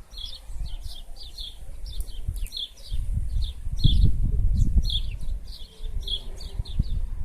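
Small birds chirping, a steady run of short high chirps, over a low rumble that swells about four seconds in and again near the end.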